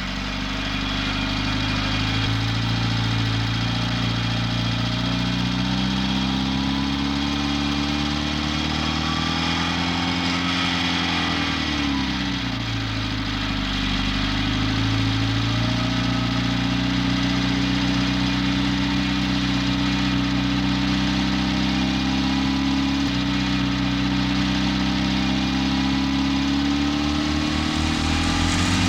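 Old truck engine running steadily. About ten seconds in it revs up, drops back sharply a couple of seconds later, then its pitch climbs slowly again.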